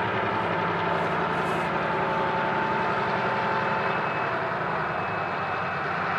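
Freight train rolling past, diesel engine running under a steady rumble of rail cars on the track.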